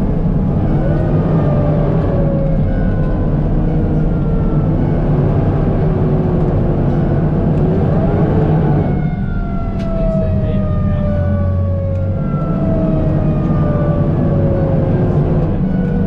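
Fire engine driving, its engine running steadily under a siren whose pitch slides up and down and, from about halfway through, falls again and again in repeated sweeps.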